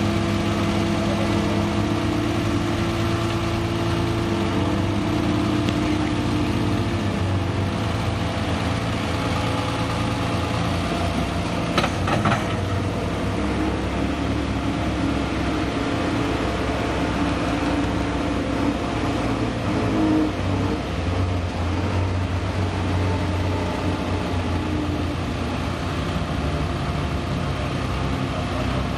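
Unimog 404 S trial truck's engine running under load as it crawls over rocks, its revs rising and falling. A single sharp knock comes about twelve seconds in.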